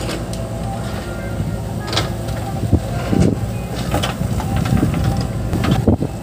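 JCB 3DX backhoe loader's diesel engine running steadily under load as the backhoe digs and swings, with knocks and clatter of soil and clods dropping into a tractor trolley from about the middle on.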